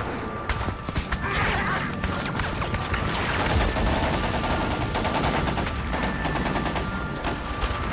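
Battle gunfire: a dense run of rapid, overlapping small-arms shots, a continuous fusillade.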